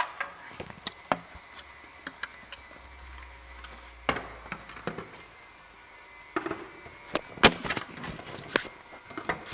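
Scattered knocks and clicks of body-kit parts being handled and fitted against a bumper, the loudest sharp knock about seven and a half seconds in.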